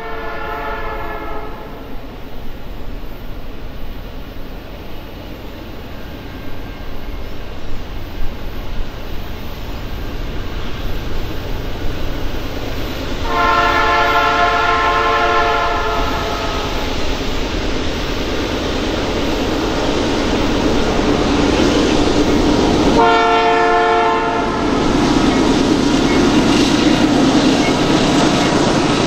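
Freight train's diesel locomotive horn sounding three times: a long blast at the start, a longer one about 13 seconds in and a short one about 23 seconds in, over the train's running noise, which grows steadily louder as it approaches.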